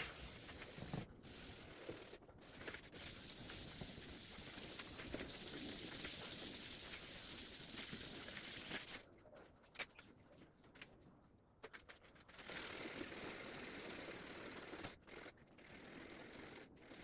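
800-grit sandpaper being rubbed back and forth over a Golf Mk1 fender, water sanding (flatting) the paint before primer: a steady scratchy hiss that stops for a few seconds about nine seconds in, then starts again.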